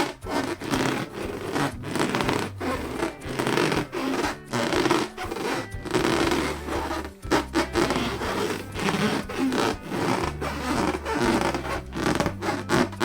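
Latex balloons being rubbed and squeezed by hand, an irregular run of rubbing and scraping strokes over a background music track with a low bass line.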